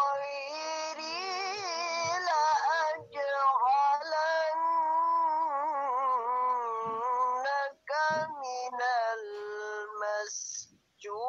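Qur'an recitation in a high voice, chanted in long, drawn-out melodic phrases with wavering held notes. The reciter pauses for breath about three seconds in and twice near the end.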